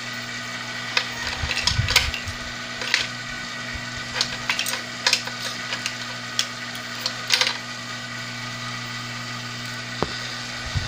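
Hot air rework station blowing steadily with a low hum while capacitors are desoldered from an amplifier circuit board, with scattered sharp clicks and crackles of a metal tool working on the board.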